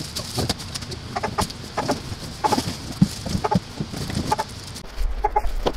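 Plastic packaging rustling and crinkling as juicer parts are lifted out of a cardboard box, with short clucking calls repeated in the background. A low rumble comes in near the end.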